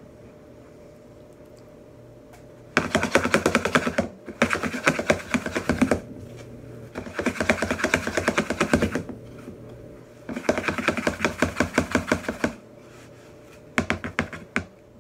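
Fast, rattling clicks in four bursts of one to two seconds each, with a shorter burst near the end, over a steady low hum.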